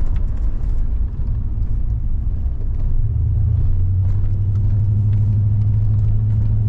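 Camaro IROC-Z's V8 heard from inside the cabin while driving: a low road-and-engine rumble that settles into a steady drone about three seconds in.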